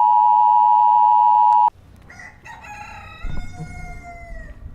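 A loud, steady electronic beep of the kind that marks a broadcast interruption cuts off sharply about a second and a half in. A rooster then crows, its call trailing down in pitch near the end.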